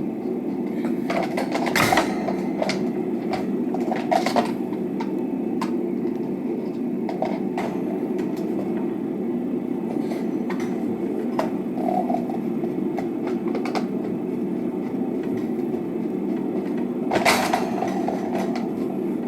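Plastic clicks and knocks of a table fan's housing parts being handled and fitted back together, a few sharp ones about 2 and 4 seconds in and a louder one near the end, over a steady low rushing background noise.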